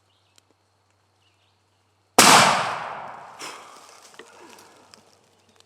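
A single shotgun shot about two seconds in, loud and sudden, its report dying away over the next couple of seconds.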